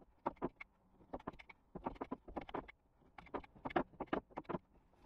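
Irregular small clicks and knocks, several a second, as a hand handles copper gas pipe and its fittings inside a ceiling void.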